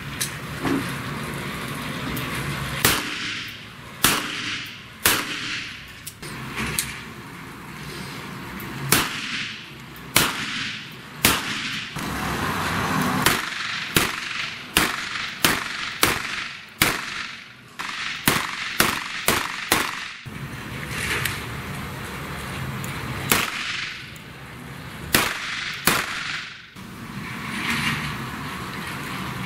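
A long string of handgun shots, irregularly spaced and at times coming about two a second, each followed by a ringing echo off the walls and roof of the covered range.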